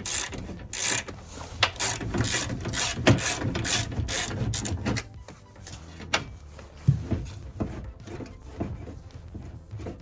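Ratchet wrench clicking in quick repeated strokes as bolts are undone inside a car door. The strokes come thick and fast for about the first half, then more sparsely.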